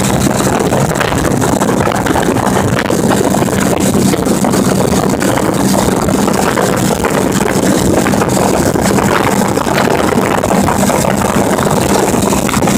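Motorcycle cruising at a steady highway speed: a steady engine hum under loud, even wind and road noise.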